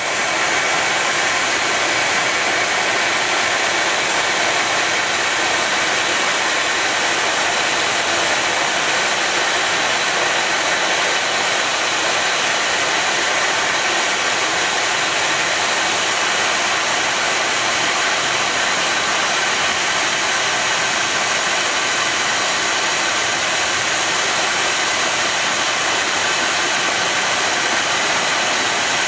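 Steady, loud, even rushing hiss from a pressurized water-pipe test rig with a simulated ring fracture at a joint.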